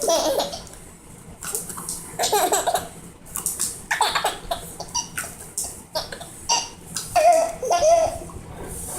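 Young child laughing in short repeated bursts, a string of giggles and squeals with brief gaps between them.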